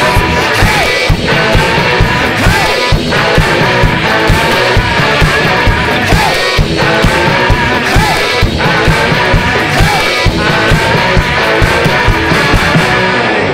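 Background rock music with singing and guitar over a steady beat.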